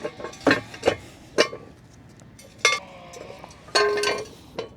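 Steel jack stands being placed and adjusted under a car: a series of sharp metallic clinks and clanks, a few ringing briefly, with a short scraping squeal between them.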